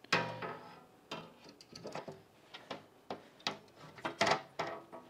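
Hand screwdriver driving screws into a steel cabinet frame: a sharp metal knock that rings briefly, then scattered irregular clicks and ticks.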